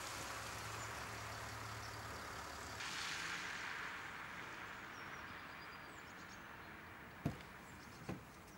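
A car on a wet road with a low engine rumble and tyre hiss; the hiss swells about three seconds in and then fades away. Two sharp clicks come near the end.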